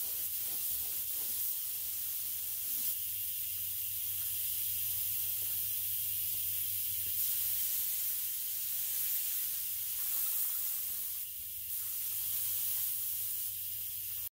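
Neiko 31207A HVLP mini gravity-feed spray gun hissing steadily as it sprays base coat onto a car bumper, with a brief easing about eleven seconds in.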